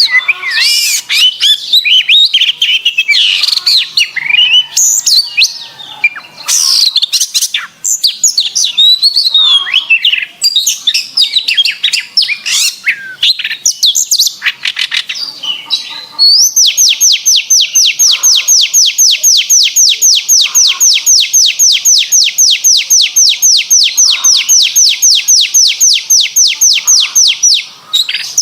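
Domestic canary singing clearly: a varied run of quick warbled notes, then about sixteen seconds in a long, fast, even trill of repeated notes held for about eleven seconds.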